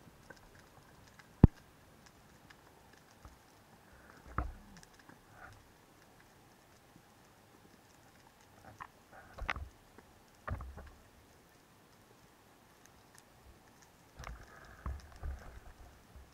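Scattered sharp clicks and dull knocks heard underwater, a few seconds apart, with the loudest single click about a second and a half in and a small cluster near the end.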